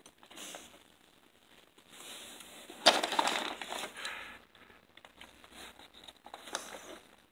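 A sharp knock about three seconds in, then a second or so of crinkling and rustling from a plastic snack bag being handled, with a few lighter clicks and knocks around it.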